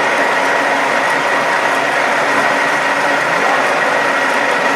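1A616 screw-cutting lathe running steadily, a mechanical hum with a steady high whine over it.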